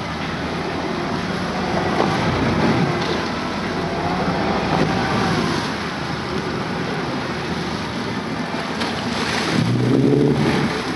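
Boat's outboard motor running, with water washing against the hull and wind noise on the microphone.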